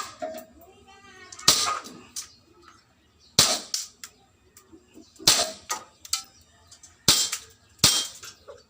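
WE T-Rex Hi-Capa gas blowback airsoft pistol firing five single shots, roughly two seconds apart with the last two closer together. Some shots are followed by smaller clicks of BBs hitting the targets.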